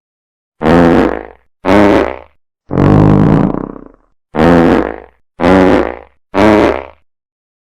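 Six fart sound effects in a row with short gaps between them, the third one longer than the others.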